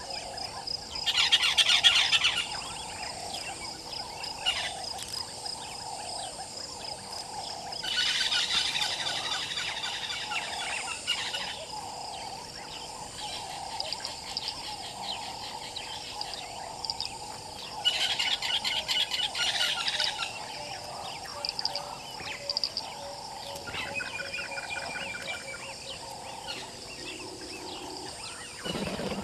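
Wild birds calling: three loud bursts of rapid trilling about ten seconds apart, then a softer call near the end, over a steady high insect drone.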